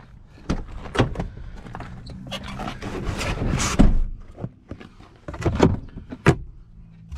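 A car door and its interior trim being handled: door clicks and knocks, a stretch of rustling that ends in a loud thunk, then a sharp knock near the end, as hands search the door pocket and lift a trim panel.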